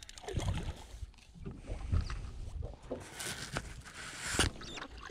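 Small splashes and swirls of water as a hooked brown trout thrashes at the surface beside a boat while a landing net is dipped in, with one sharp knock a little over four seconds in.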